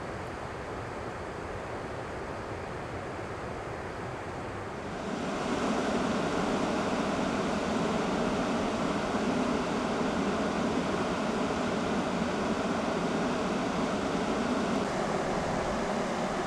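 Steady rushing of river water through rapids, which jumps abruptly louder about five seconds in.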